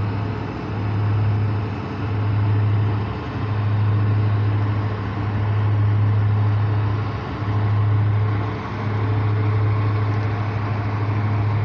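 An engine running steadily: a loud low hum that swells and dips about every second and a half, over a steady rushing noise.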